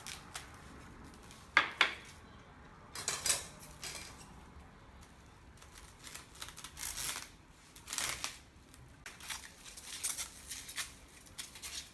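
Plastic cling film being pulled and handled: irregular short, sharp crinkling and rasping strokes, about one every second.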